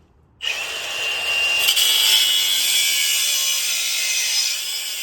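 Angle grinder with a cut-off wheel slicing through the quad's metal frame. It starts suddenly about half a second in and runs steadily at a high pitch.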